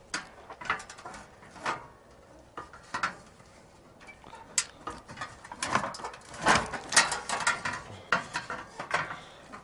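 Clicking, knocking and rattling of an electric space heater's parts being handled and tugged during dismantling, as a power cord is pulled at through the housing. A few scattered clicks at first, then a busier run of knocks and scrapes from about halfway through.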